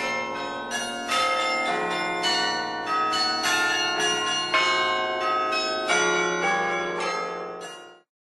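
Bells ringing: a run of overlapping bell strikes with long ringing tones, fading out near the end.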